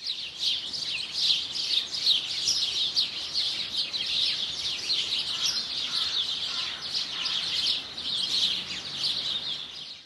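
Several small songbirds chirping and twittering together: a dense, unbroken chorus of quick, high, mostly down-slurred chirps.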